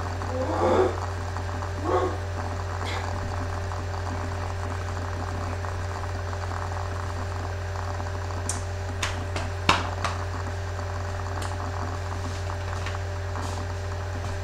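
Steady low hum of a home computer recording, with two short vocal sounds near the start and a scatter of sharp clicks and knocks about two-thirds through, the loudest a single knock near ten seconds in.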